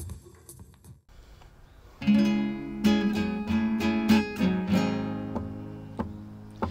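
Earlier music fades out, then about two seconds in an acoustic guitar starts strumming chords, about one strum a second, each left to ring. This is the introduction to a song.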